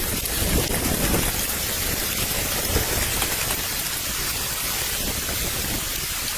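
Wind blowing steadily through a snowy forest, with a fine rain-like patter over it.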